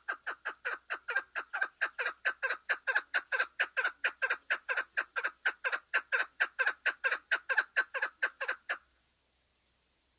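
Chukar partridge calling a long, rapid series of chuk notes, about five a second, loudest in the middle of the run, that stops abruptly about nine seconds in.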